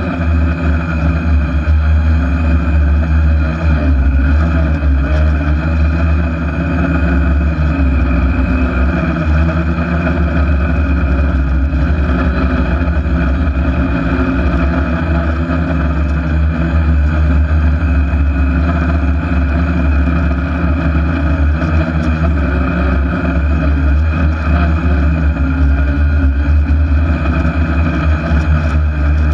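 Electric motors and propellers of a six-rotor hexacopter drone in flight, heard from a camera mounted on the craft: a loud, steady buzz of several tones over a deep rumble.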